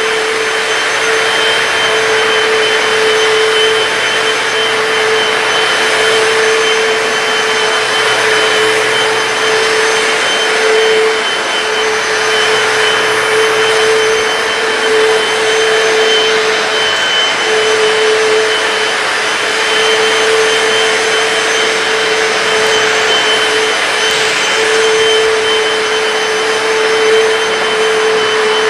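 Hoover PowerDash hard floor cleaner running steadily as it cleans a tile floor: the suction motor keeps up a constant drone with a steady motor tone throughout.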